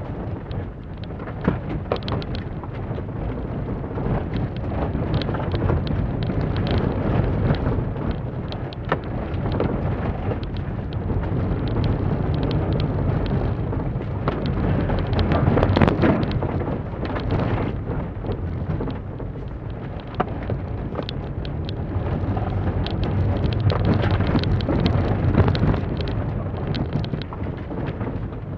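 2006 Holden Barina's four-cylinder engine revving up and down under hard driving, heard inside the cabin. Over it a continual rattle and patter of gravel and dirt against the underbody, with knocks from bumps in the rough ground.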